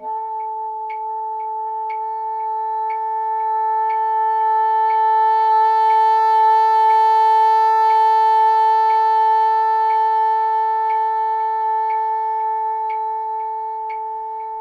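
Bassoon sustaining a single long tone in its top octave, starting soft, swelling to its loudest mid-way and then tapering off. The exercise shows up any quiver from uneven lip pressure in the tone. Faint steady ticking sounds about once a second underneath.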